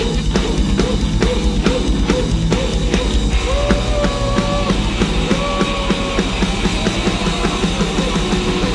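Grindnoise/noisecore music: a dense, loud wall of distorted instruments and drums. Rapid hits fill the first three seconds, then longer held tones take over.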